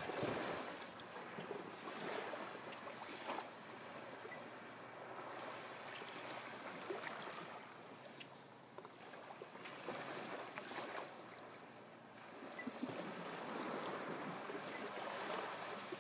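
Small waves breaking and washing up a sandy beach, the surf hiss swelling and fading as each wave comes in, several times.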